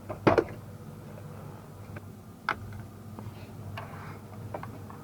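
A few sharp clicks and knocks of hard plastic dashboard trim and its clips being handled and pulled free, the loudest about a third of a second in, over a low steady hum.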